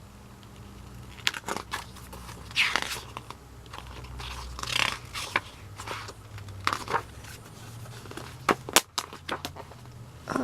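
Hands handling a K-pop album's packaging and printed inserts: paper and plastic crinkling and rustling with irregular clicks and taps, starting about a second in.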